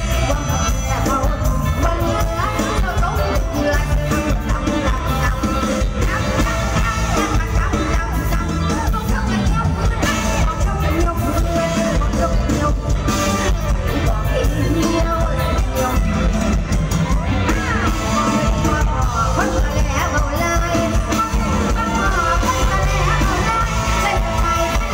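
Live Isan band music with a steady beat and singing, with a little crowd noise.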